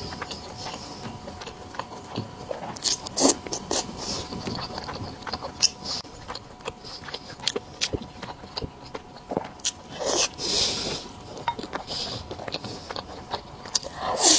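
Close-miked eating sounds: a person chewing and biting soft food, with many irregular sharp clicks and short wet smacks.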